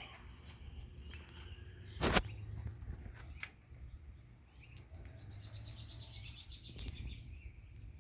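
Low outdoor rumble with a single sharp knock about two seconds in and a few fainter clicks. A small bird gives a quick trill of rapidly repeated high notes just past the middle.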